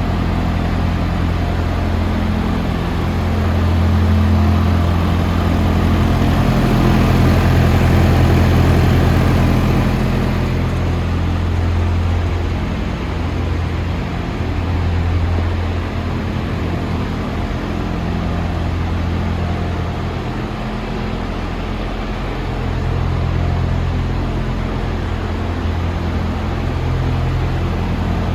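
Large diesel engine idling steadily, with a deep low hum that swells and eases slightly in level.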